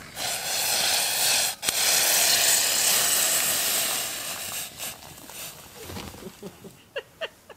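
Water poured from a pot into a camp mug onto a coffee steeping bag: a steady splashing pour with a brief break about a second and a half in, tapering off after about four seconds, with a few small ticks near the end.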